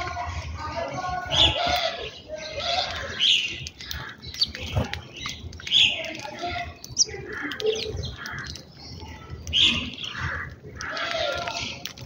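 House sparrows chirping, many short notes again and again, with indistinct voices in the background.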